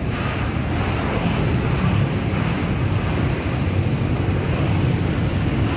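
Steady rush of a flooded river's fast brown current churning under a railway bridge, an even, unbroken noise.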